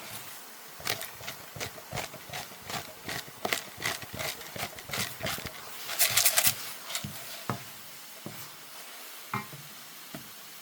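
A spatula scraping and tapping against a frying pan as mushrooms are stir-fried: quick, irregular strokes for about the first seven seconds, busiest around six seconds in, then a few single knocks.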